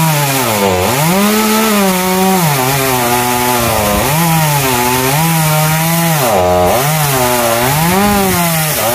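Gasoline chainsaw cutting through a tree trunk, the engine's pitch sagging under load in the cut and picking back up again and again.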